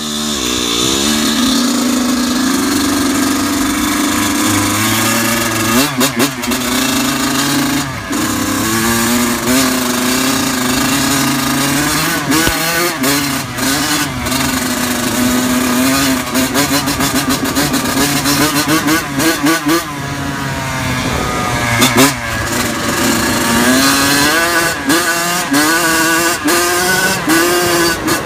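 Suzuki RM100 dirt bike's two-stroke single-cylinder engine being ridden, revving up and down over and over, with frequent sharp crackles.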